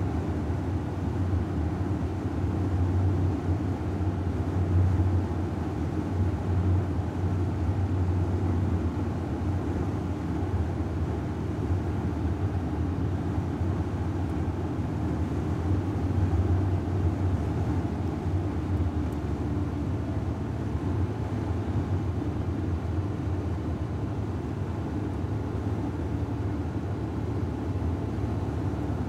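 Steady drone of road and engine noise inside a car's cabin while cruising on a motorway, a low rumble with no changes or distinct events.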